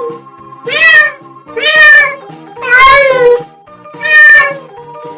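Domestic cat meowing again and again, about once a second, each meow rising and then falling in pitch.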